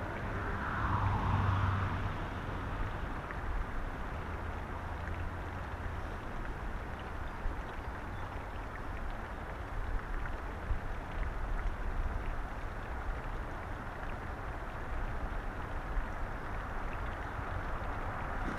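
Steady rush of a flowing stream, with low wind rumble on the microphone and a few faint clicks.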